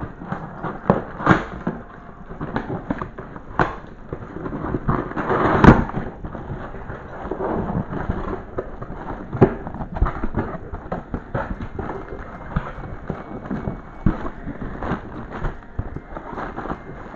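Cardboard parcel being torn open close by: heavily sellotaped packing tape and cardboard crackling and ripping, with irregular snaps and knocks, the loudest about six seconds in.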